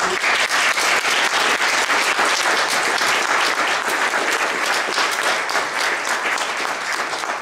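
An audience applauding: many hands clapping in a dense, steady patter that starts abruptly.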